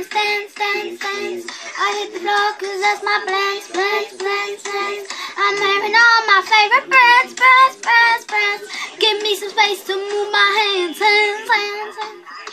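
A young girl singing in a high voice, the notes moving quickly up and down with hardly a pause, loudest about halfway through.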